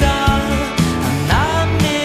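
A pop song: a voice singing in Tagalog over bass and a steady beat.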